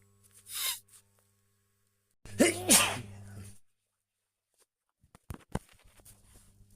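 A person's natural sneeze about two seconds in, coming as two loud bursts close together with the voice in them, and cutting off abruptly. A short breathy sound comes just before it, and a few sharp clicks near the end.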